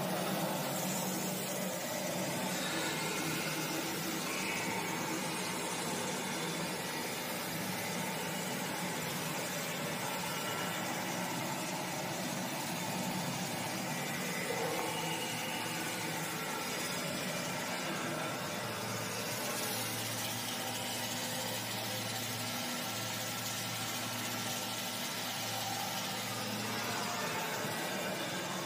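Dragon fruit (pitaya) pulping machine running steadily: its electric motor and spinning beater make a constant, even mechanical noise.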